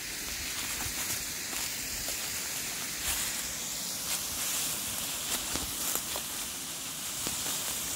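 Steady rushing hiss of a small waterfall dropping about 15 to 20 feet, with scattered faint crunches of footsteps in dry leaf litter.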